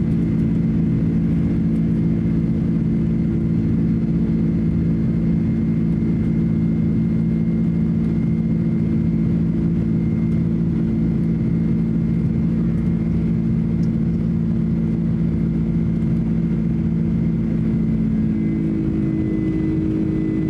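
Boeing 767-300's jet engines heard from inside the cabin during the climb after takeoff: a steady drone with several low humming tones over a broad rush. Near the end a slightly higher tone joins in.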